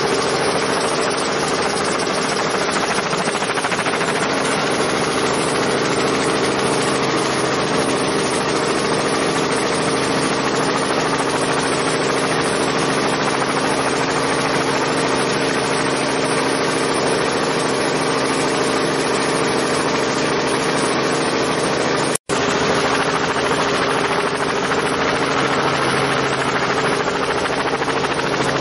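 Boeing CH-47 Chinook twin-turbine, tandem-rotor helicopter hovering, a steady drone of rotors and turbines with a few held tones. It cuts out for an instant about three-quarters of the way through.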